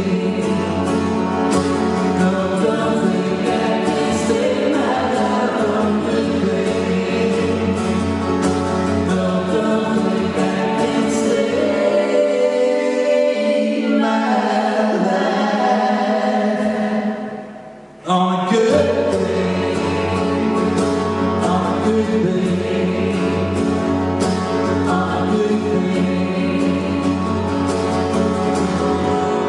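A live band playing a song with group singing over the instruments. About twelve seconds in the bass drops away and the music thins, then it almost stops for a moment near the middle before the full band comes back in.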